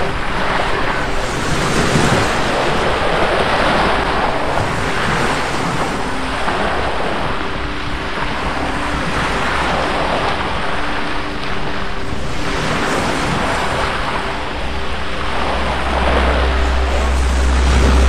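Sea waves breaking on the shore one after another, the surf swelling every few seconds, with a faint steady hum underneath. Near the end, wind buffeting the microphone adds a low rumble.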